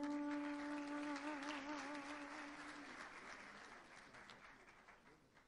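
Audience clapping under the last held note of a sung Sufi kalam. The note ends about three seconds in, and the applause fades out soon after.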